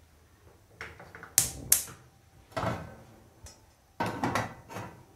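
A frying pan and gas cooker being handled: two sharp clicks about a second and a half in, a rustle, then knocking and scraping of the metal pan on the burner grate near the end.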